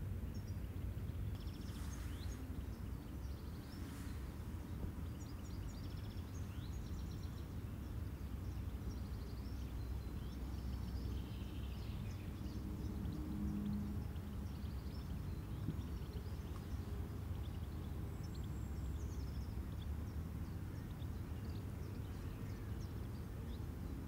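Outdoor ambience: a steady low rumble with faint, scattered high-pitched chirps.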